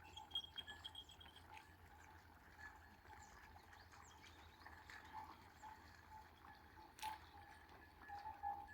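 Faint, repeated light ringing of small bells, with one sharp click about seven seconds in.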